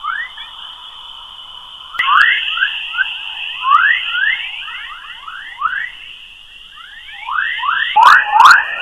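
Space plasma-wave recording converted to sound: a rapid string of rising, bird-like chirps over a steady high hiss. The chirps thicken and grow louder near the end, where a couple of sharp crackles cut across them.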